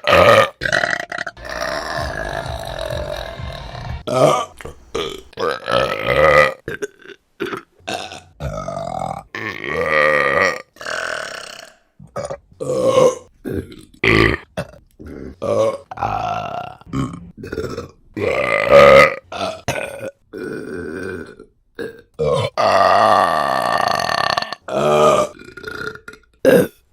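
Women's burps in quick succession, one clip after another: many short burps and several long, drawn-out ones lasting two to three seconds.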